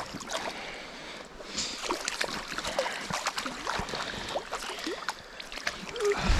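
A hooked brook trout thrashing and splashing at the water's surface, with many short splashes over the steady wash of a small stream, and a landing net dipping into the water. A louder low thump comes near the end.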